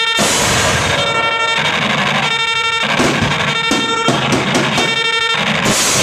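Loud live band music, a dense and noisy wall of sound with drums and guitar, built on a figure that repeats roughly every second and a quarter.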